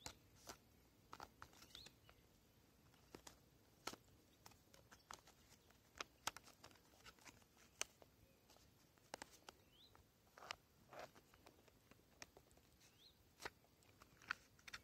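Near silence, broken by scattered faint, irregular clicks and taps from hands handling a small wooden card wallet and the cards in it.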